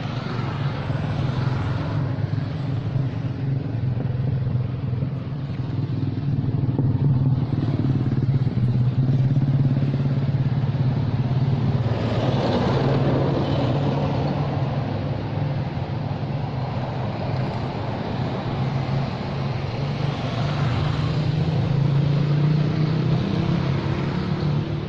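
An engine running steadily with a low drone, swelling louder about halfway through and again near the end, like a motorbike or other vehicle nearby.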